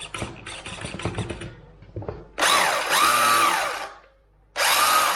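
Finecone Baron RC car's small electric motor and drivetrain whining in two short throttle bursts, each rising in pitch and then holding steady, after some clicking and rattling from handling the car.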